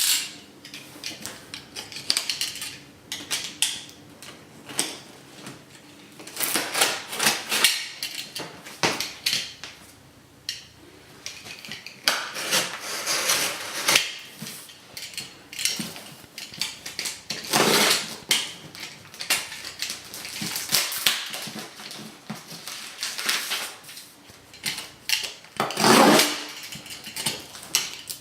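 Hands working open a cardboard shipping box wrapped in packing tape: irregular scraping, rustling and tearing with sharp knocks and clatters as the package is handled.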